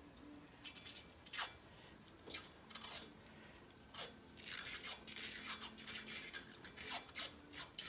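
Tape peeling off its roll in a series of short, uneven pulls as it is wound around a steel PTO shaft.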